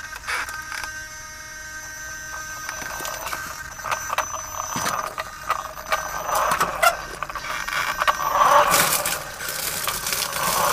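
Small RC crawler rover driving over gravel and dirt: a steady thin motor whine with its knobby tyres crunching and scraping and the chassis rattling. The scraping and rattling grow louder in the last few seconds.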